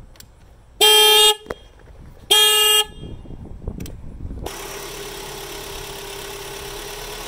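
Two short car-horn honks about a second and a half apart. About four and a half seconds in, the Kia Sorento's 2.4 L four-cylinder engine is heard idling steadily.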